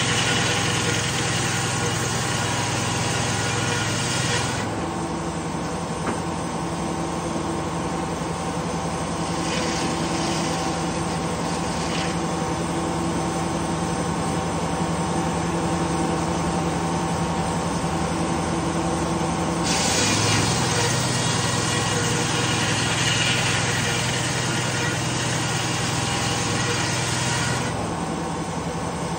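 A Detroit Diesel two-stroke engine drives a circular sawmill blade, running steadily throughout. The blade saws pine at the start for about four seconds and again from about two-thirds through for about eight seconds, and each cut is much louder and harsher than the engine and free-spinning blade between cuts.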